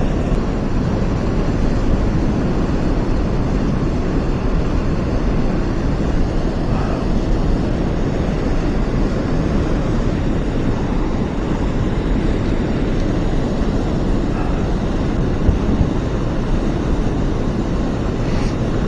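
Steady rushing of white water pouring over a low river dam, with wind noise on the microphone.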